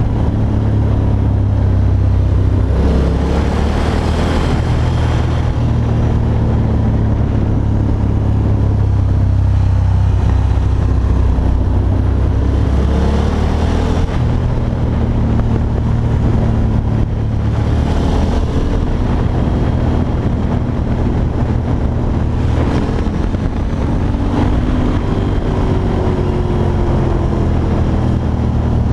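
2006 Ducati Monster's V-twin engine running at road speed, picked up by a chest-mounted GoPro. The engine note rises and falls repeatedly as the throttle is opened and closed through the curves.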